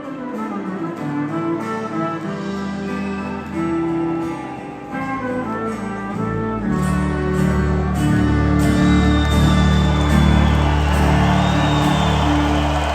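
Live rock band playing the instrumental outro of a song, with sustained guitar notes; about six and a half seconds in, the bass and full band come in heavier and louder.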